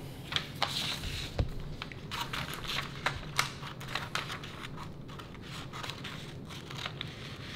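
Scissors cutting through a large paper sink template: irregular snips of the blades with the sheet rustling and crinkling as it is handled.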